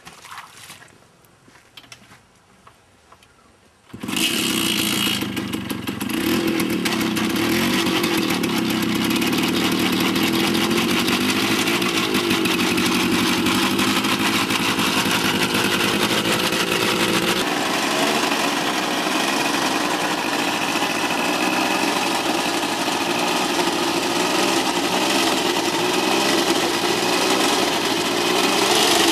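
An engine starts abruptly about four seconds in and keeps running steadily.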